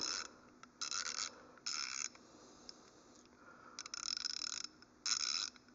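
Wera Zyklop 3/8-inch-drive, 72-tooth ratchet turned back and forth on a socket, its pawl making short runs of very fine, fast clicks. There are five strokes, each under a second, with pauses between.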